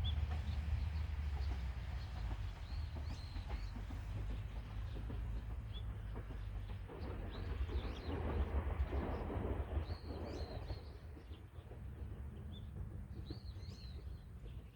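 A Bessho Line 1000-series two-car electric train running away after passing. Its low rumble swells about halfway through and then fades, while small birds chirp a few times.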